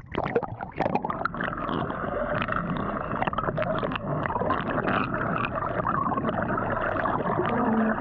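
Underwater sound heard through a camera submerged in its waterproof housing: a dull, muffled wash of moving water, thick with small crackles and clicks.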